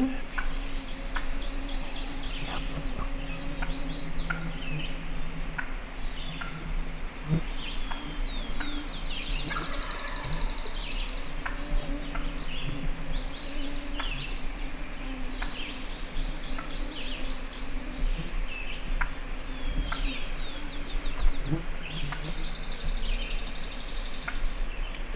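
Several wild songbirds singing in woodland, with many short phrases and two fast, high trills, over a steady low hum.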